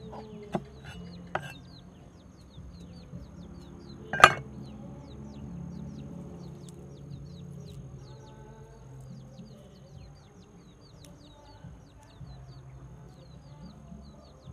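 Cleaver knocking on a wooden chopping board: two light knocks in the first second and a half, then a much louder knock about four seconds in as the cleaver comes down on the board. Many quick high bird chirps go on behind.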